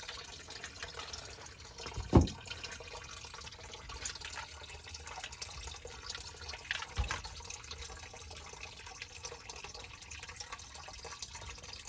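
Water trickling and dripping in a basement sump pit, with two sharp knocks, the louder about two seconds in and another about seven seconds in.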